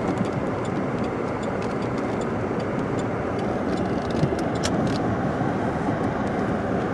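Steady road and engine noise of a car driving on snow-covered roads, heard from inside the cabin, with faint scattered ticks.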